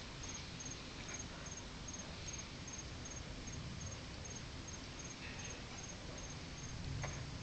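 A cricket chirping steadily: short, high chirps repeated evenly about two and a half times a second, over a faint low rumble.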